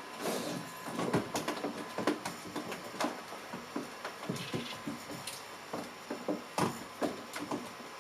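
Irregular light knocks and clicks, several a second at times, over a faint steady tone.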